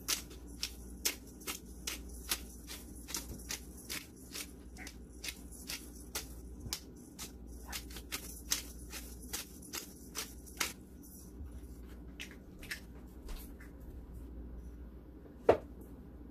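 Black peppercorns being ground in a bottle-top pepper grinder: a short crackling twist about twice a second, thinning out after about ten seconds, with one sharper knock near the end.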